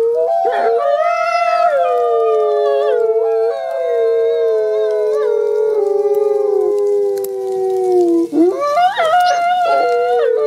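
Two wolves howling together in long, overlapping held notes at two different pitches, the lower one slowly sinking. Near the end the howls break off briefly and start again with rising glides.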